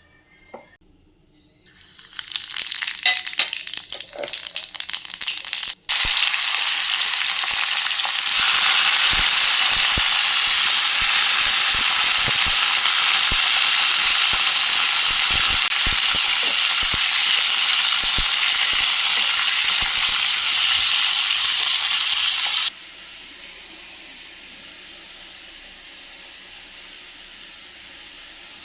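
Bitter gourd frying in hot oil in a pan. A crackling sizzle starts about two seconds in and becomes a loud, steady sizzle, which drops suddenly to a quieter hiss a few seconds before the end.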